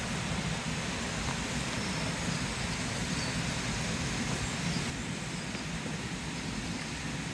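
Swedish torch (a slotted timber log burning from the inside) burning with a steady rushing rumble and a few faint crackles.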